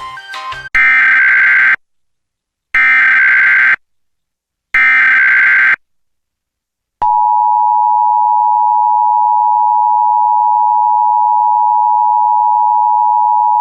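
Emergency Alert System tones: three shrill digital data bursts of the SAME header, each about a second long with a second of silence between, then about seven seconds in the steady two-tone EAS attention signal begins and holds. The last notes of a short musical intro fade at the very start.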